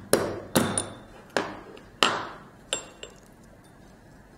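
Black cardamom pods being cracked open by hand to free the seeds: about six sharp knocks, each with a brief ring, over the first three seconds.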